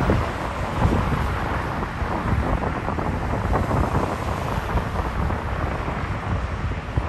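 Wind buffeting the microphone in uneven gusts, over a steady rumble of passing road traffic and a departing jet airliner's engines.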